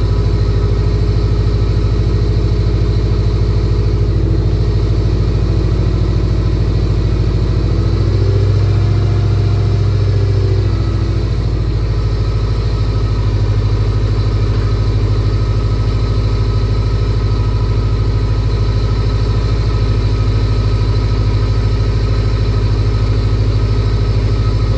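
Freshly rebuilt Subaru EJ257 turbocharged flat-four engine idling steadily on its first run after the rebuild. The idle shifts briefly about eight to eleven seconds in.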